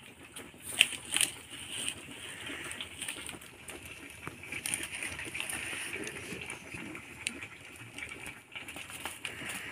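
Open wood fire crackling and popping, with two sharp pops about a second in, over a steady hiss.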